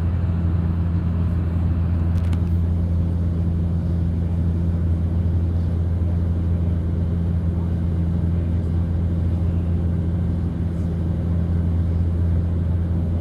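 Cabin drone of a De Havilland Canada Dash 8 turboprop on approach: a steady low propeller hum with a second hum about twice its pitch, over an even rush of air.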